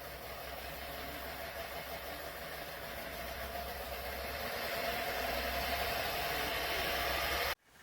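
Pro Breeze tower fan running: a steady rush of air with a motor hum, growing slowly louder, then cutting off suddenly near the end.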